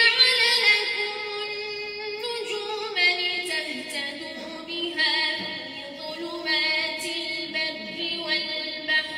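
A woman reciting the Quran in melodic tajweed style into a microphone, drawing out long held notes that step from pitch to pitch.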